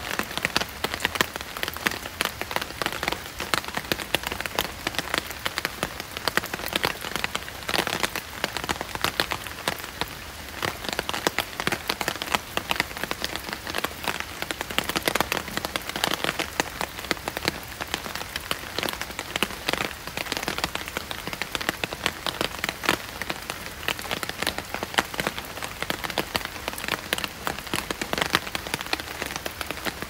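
Steady rain falling, a dense patter of drops hitting surfaces. No kookaburra call is heard.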